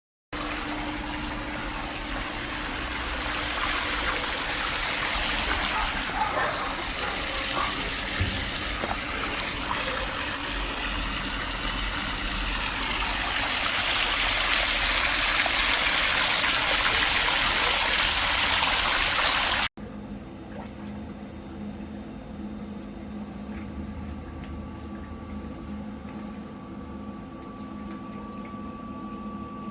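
Pool water rushing and splashing steadily, growing louder about two-thirds of the way through. It cuts off suddenly and is followed by a quieter steady hum with a faint steady tone.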